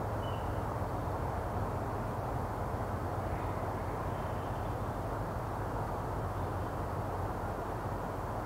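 Steady low outdoor background rumble, with a couple of faint, short high notes about a third of a second in and again around four seconds in.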